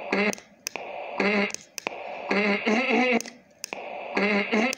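A recorded voice played back through the ISD1820 voice record/playback module's small speaker: short, tinny bursts of speech over a steady hiss, with sharp clicks between them.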